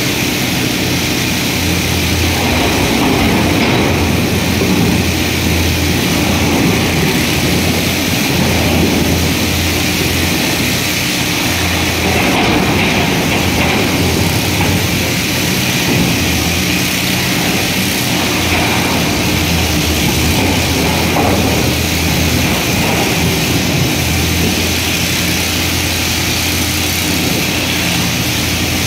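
Komatsu PC350 hydraulic excavator's diesel engine running under working load as the machine digs and swings: a continuous low drone that swells and eases a little.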